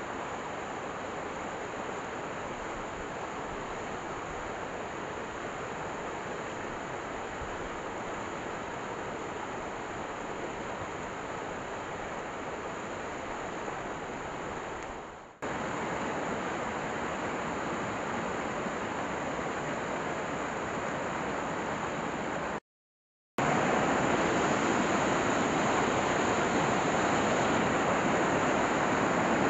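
A fast, shallow stream rushing over boulders, a steady rush of water. The sound breaks off twice, once about halfway through and once for under a second near the end, and it is louder after the second break.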